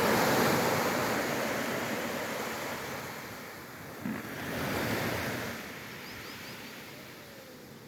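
Sea waves breaking on the shore. The surf is loudest at the start, surges again about five seconds in, then fades away.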